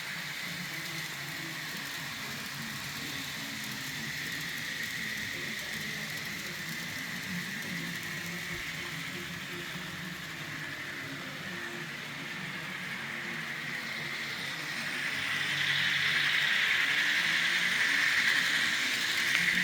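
N-scale model trains running on the layout track: a steady whir of the small locomotive motors and wheels on the rails, growing louder about fifteen seconds in.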